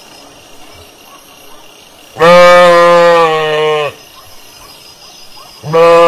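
Sheep bleating: one long call of nearly two seconds, steady in pitch, then a second call starting near the end.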